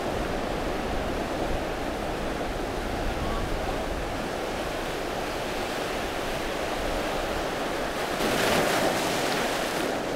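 Waves washing in over a shallow rocky reef in a steady rush, with one louder surge about eight seconds in.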